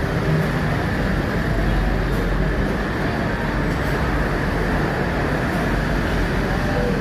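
Steady road traffic noise: vehicle engines blending into a constant low rumble.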